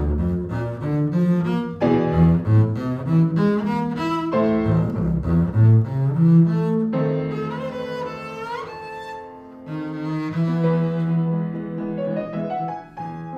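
Double bass bowed in a concerto solo line with piano accompaniment: quick runs of notes in the first half, then longer held notes, ending in a rising run.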